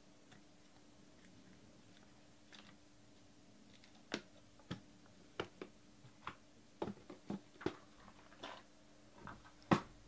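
Scattered light clicks and crinkly snaps of small objects being handled at a desk, about a dozen at irregular spacing from about four seconds in, the last one the loudest.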